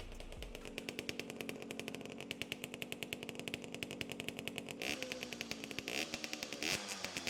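Pocket bike's small engine running at a fast, even idle, then revved up and down a few times in the second half.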